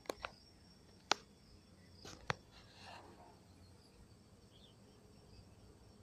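Faint rural dawn ambience: a steady high insect chirring, broken by four sharp clicks in the first two and a half seconds.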